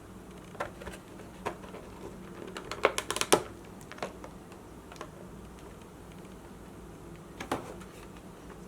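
Light, sharp plastic clicks and taps from handling a collector box's plastic packaging insert, scattered singly, with a quick run of clicks about three seconds in.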